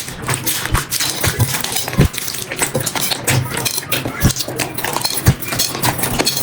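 Slime being squished and poked by hand: a dense run of sticky crackles and small pops, with a few deeper thumps about two, four and five seconds in.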